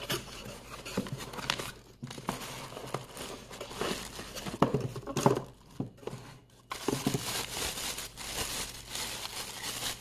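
Cardboard box being opened and its contents slid out, with irregular rustles and knocks, then in the last three seconds a thin plastic bag crinkling steadily as it is handled and pulled off the bilge pump.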